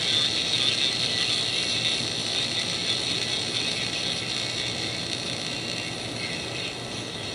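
Steady hiss and static from a crystal radio set played through a small audio amplifier and loudspeaker, with faint steady whistles in it, while it is tuned between stations on the AM broadcast band. It fades slightly toward the end.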